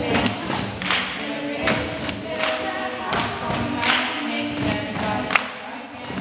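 A woman singing live into a microphone over a strummed acoustic guitar, with a strong strum about every three-quarters of a second.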